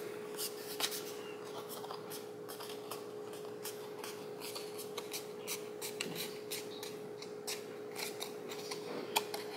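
Cardstock paper crackling and rustling in the fingers as its edges are pinched and bent into a curve, many short crisp crackles over a steady hum.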